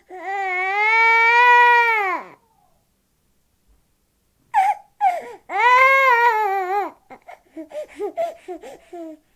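A 10-month-old baby crying. It starts with a long wail that falls away after about two seconds, then a pause. Short cries follow, then a second long wail, and it ends in a run of short, broken sobs.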